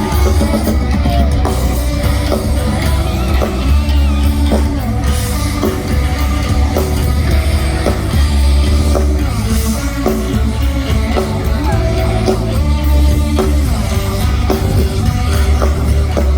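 Live rock band playing loud, with heavy bass and drums, electric guitar and a singing voice.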